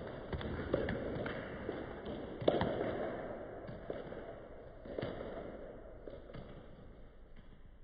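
Wooden breaking boards being struck and cracking, a run of sharp impacts a second or so apart, the loudest about two and a half and five seconds in, fainter toward the end.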